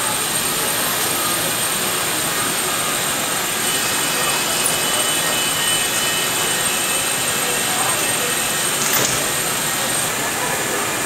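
Steady rushing hum of a double-decker passenger train standing at an underground platform, with a thin high whine over it and people's voices murmuring in the hall. A short sharper hiss comes about nine seconds in.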